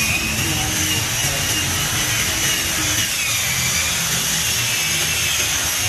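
A woodworking power tool running steadily, with a high whine that slowly wavers up and down.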